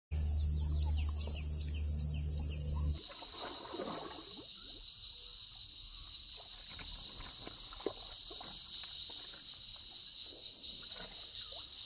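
Insects shrilling steadily with birds calling now and then and a few faint clicks. For the first three seconds a low steady hum lies underneath, then stops.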